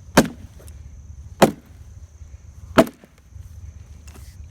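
Sledgehammer striking a fence post set in a concrete footing, three heavy blows about a second and a quarter apart, knocking the concrete loose.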